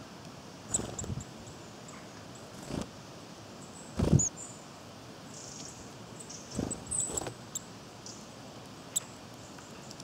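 Small birds, including a Eurasian nuthatch, landing, fluttering and pecking at sunflower seeds on a wooden bench right by the microphone: irregular soft thuds and taps, the loudest cluster about four seconds in, with a sharp tap near the end. Brief high chirps from small birds come and go.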